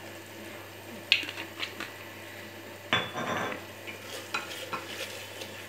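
A wooden spoon stirring thick, simmering egg roast masala in an aluminium pressure cooker, with scattered knocks and scrapes against the pot and a louder scraping stretch about three seconds in. The masala sizzles faintly underneath.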